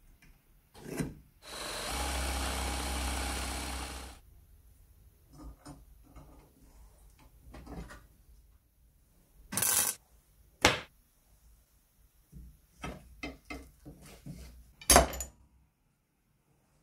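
Hand work at a small metal bench vise: a steady mechanical noise for about three seconds, then scattered metal clanks and knocks as the vise and parts are handled, the loudest near the end.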